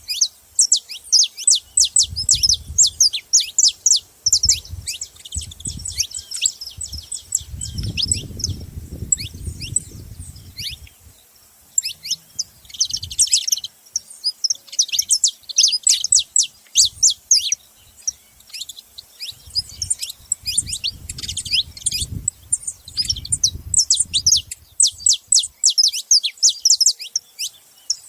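Saffron finches chirping: dense runs of rapid, sharp high chirps, broken by short pauses about a third and two-thirds of the way through. Low rumbles come and go beneath them.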